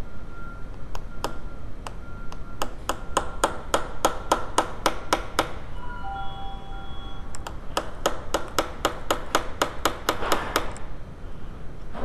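Ball-peen hammer tapping rapidly on a punch to drive the roll pin out of a distributor shaft, each blow ringing metallically. The taps come about three to four a second in two runs, with a pause of about two seconds between them.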